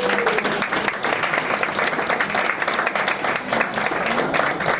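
Audience applauding, many hands clapping steadily for an award winner.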